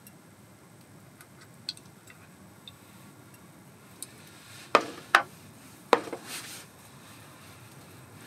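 Kitchen items being handled while preparing a raw chicken: a few light clinks, then three sharp knocks in quick succession about halfway through, the last followed by a brief rustle.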